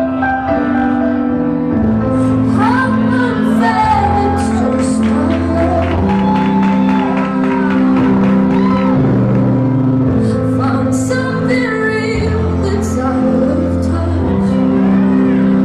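A song playing: a voice singing a melody over sustained held chords and a bass line that steps from note to note. The voice comes in about two seconds in.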